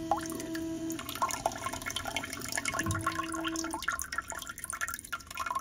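Electric bidet toilet seat running its front wash: a steady hum sounds twice, about a second each, as the wand works, while water sprays and trickles down into the bowl.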